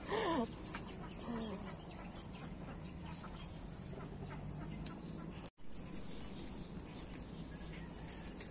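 A chicken gives a short falling call at the start, then a fainter one a second later, over a steady high drone of insects. There is a brief dropout about halfway.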